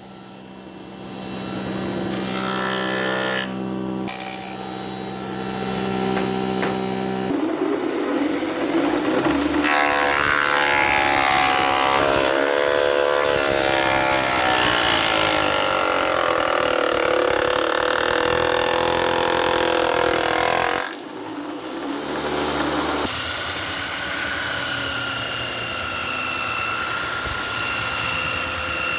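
Handheld electric power tool running loudly as it works the wood. Its motor pitch wavers up and down through the middle stretch, then holds steady again near the end.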